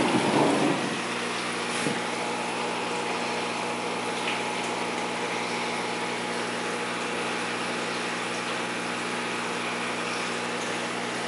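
Steady hum and hiss of an aquarium's wet/dry filter system: the sump pump running with high-flow water moving through it. There is a brief louder rush of noise in the first second.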